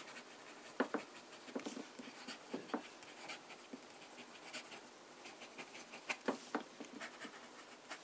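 Fine nib of a Ratnam & Sons No. 12 ebonite fountain pen scratching across paper in fast handwriting: a faint, irregular run of short strokes and ticks. The nib is a little scratchy.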